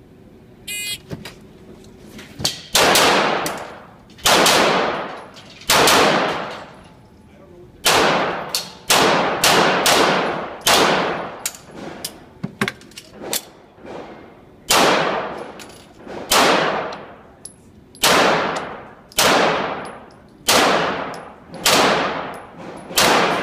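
A shot-timer beep, then a long string of handgun shots on an indoor range, each shot ringing out in a long echo. The first few shots come more than a second apart and later ones follow faster, in quick pairs and groups.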